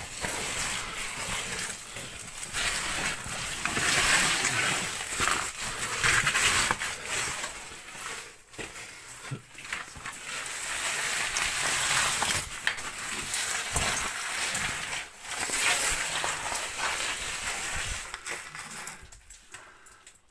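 Rustling, scraping and knocking of a caver clambering through rock boulders with the phone in hand, its microphone rubbing against clothing and rock. It dies down about a second before the end.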